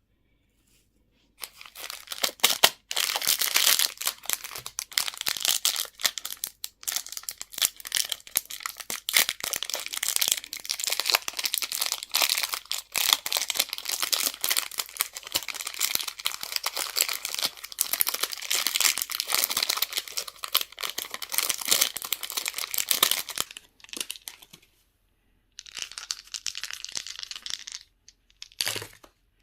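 Candy wrapper packaging crinkling and tearing as it is unwrapped, a dense crackle that begins about a second and a half in and runs for some twenty seconds. It stops briefly and then comes back for a few more seconds, with one short burst near the end.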